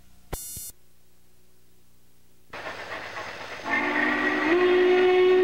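Norfolk & Western steam locomotive whistle blowing a long chord of several notes, starting about two-thirds of the way through over the rush of the train and stepping slightly up in pitch partway. A short burst of noise sounds about a third of a second in.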